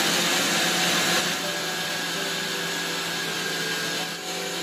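Preethi Zodiac mixer grinder motor running at speed with its chopper bowl, mincing boneless meat into keema: a steady motor whine over a loud hiss.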